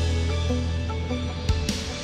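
Background music: a soundtrack with a steady, heavy bass under a melody of short pitched notes, with a sharp drum hit about one and a half seconds in.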